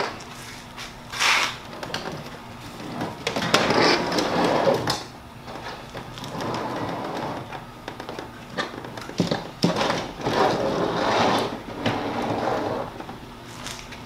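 A bare window air-conditioner chassis being handled and turned on a table: irregular scraping and rubbing of its sheet-metal and plastic parts, with scattered sharp clicks and a few knocks.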